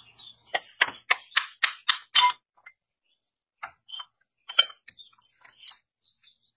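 Metal clinks and taps from car alternator parts being handled. A quick run of about seven sharp, evenly spaced clinks comes early on, followed by a few scattered, softer ones.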